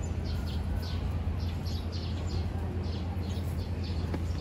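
Birds chirping in short, quick repeated notes, several a second, over a steady low hum.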